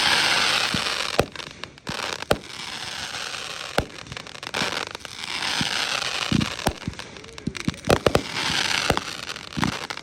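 Consumer fireworks going off: repeated sharp bangs and pops mixed with long hissing, crackling swells that each last a second or two.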